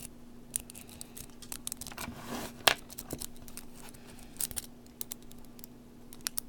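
Improvised rake and tension tool scraping and clicking inside the keyway of a laminated padlock: many small metallic ticks, with one sharp click about two and a half seconds in.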